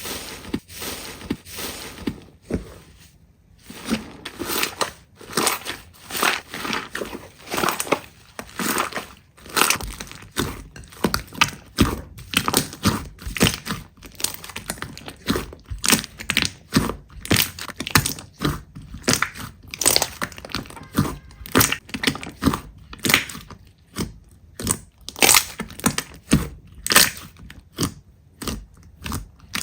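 Slime being squeezed and pressed by hands, making a steady run of short sharp pops and crackles, roughly two a second, with some quick clusters.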